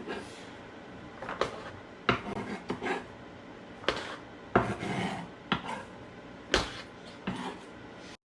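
Irregular knocks, clinks and scrapes of a kitchen utensil against a cutting board and bowl as chopped onions are tipped in with diced tomatoes and stirred together.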